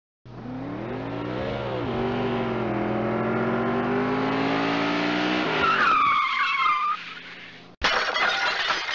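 Car engine accelerating with rising pitch, then tyres screeching for about a second. Near the end comes a sudden loud crash.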